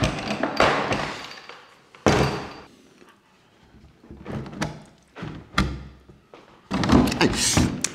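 Wooden panelled door being handled and fitted into a doorway: a series of wooden knocks and thuds as it bumps against the frame, the loudest about two seconds in, with a busier clatter near the end.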